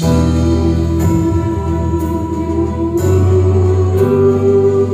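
Mixed vocal group of women and men singing in harmony into microphones with instrumental accompaniment. Held chords change about once a second over a strong low bass line.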